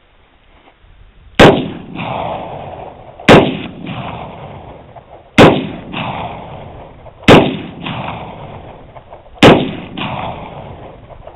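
Five shots from a .500 S&W Magnum revolver with a 4-inch barrel, fired at a steady pace of about one every two seconds. Each very loud crack is followed by a fainter echo about half a second later and a long rolling decay.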